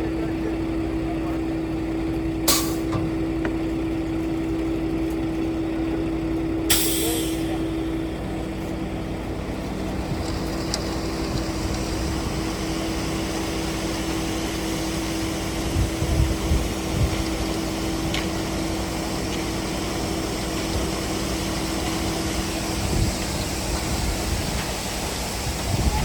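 Heavy truck engine running steadily, with two short air-brake hisses in the first seven seconds; the engine note changes about eight seconds in.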